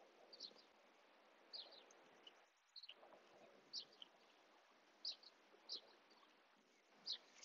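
Faint bird chirps outdoors: short, high calls, one every second or so, over a soft steady background hiss.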